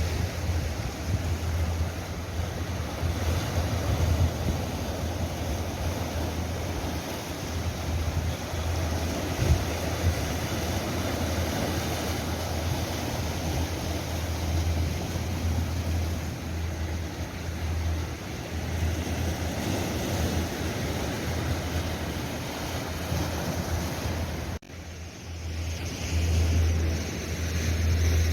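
Sea waves washing and breaking on the shore, with wind buffeting the microphone as a steady low rumble. The sound drops off abruptly for a moment near the end, then picks up again.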